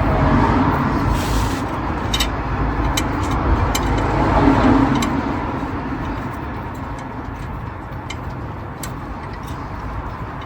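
Steady rush of passing road traffic that fades after about five seconds, with a few sharp metallic clicks of a socket and extension working a spark plug into the engine.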